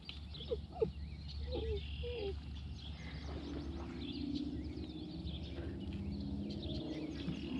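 Small birds chirping and singing across open water, with a few short, low, swooping calls in the first two seconds. A steady low hum comes in about three seconds in.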